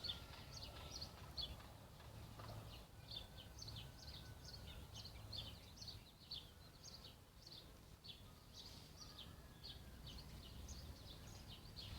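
Birds chirping faintly in the background: a steady string of short, high chirps, a few each second, over a low hum.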